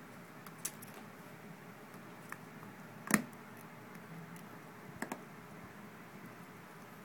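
A few scattered small clicks and taps of a precision screwdriver and tiny screws on an iPhone's metal frame as its screws are being removed. The sharpest click comes about three seconds in, and a quick double click follows about two seconds later.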